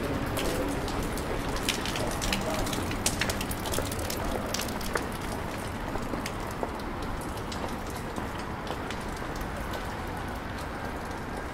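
Steady rain, with single drops ticking sharply on an umbrella overhead; the ticks come thickly at first and thin out after the middle.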